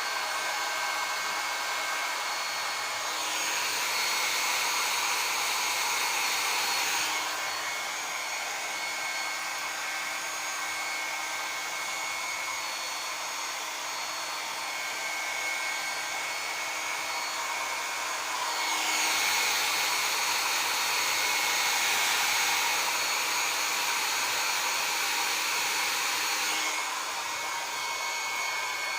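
Handheld hair dryer blowing steadily, drying wet hair, with a few steady whining tones over the rush of air. Twice its sound shifts and gets a little louder for several seconds.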